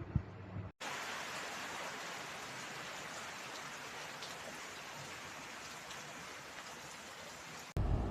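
A steady, even hiss that starts abruptly just under a second in and cuts off abruptly near the end.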